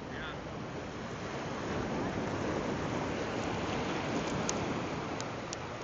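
Ocean surf breaking and washing up the beach: a steady rush of noise that swells in the middle and eases off near the end.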